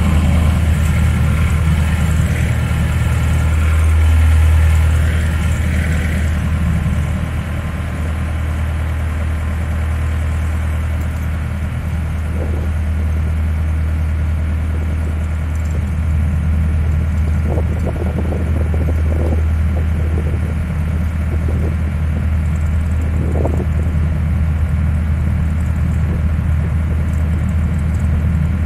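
A narrowboat's diesel engine running steadily at cruising speed, a low even drone. It is louder and more echoing for the first few seconds while the boat passes under a bridge.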